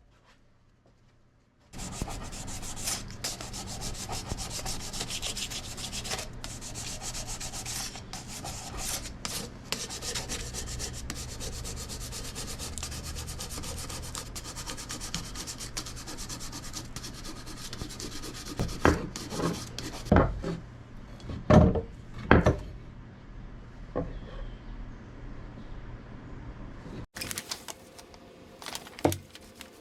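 A hand file scraping fast, repeated strokes across the wooden handle of a Husqvarna axe to carve a grip. The filing starts about two seconds in and runs on steadily. A few louder knocks come about two-thirds of the way through, and the filing cuts off shortly before the end.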